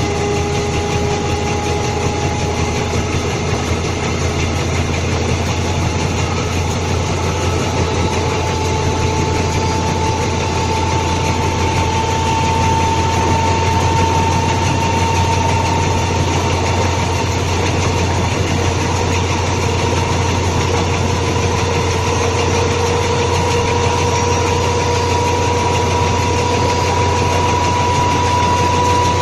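Train wheels rolling on the rail, heard from beneath the coach's bogie: a steady, loud rumble and rush, with a faint whine that rises slowly in pitch as the train gathers speed.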